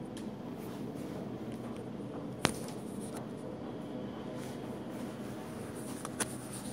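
Handling noise from a hand-held phone being moved: a sharp click about two and a half seconds in and a smaller one near the end, over a steady low indoor hum.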